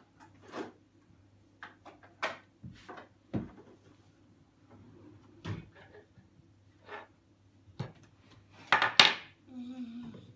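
Irregular clicks, knocks and clatters of small hard objects being handled and set down, a dozen or so separate strikes with a louder clatter about nine seconds in.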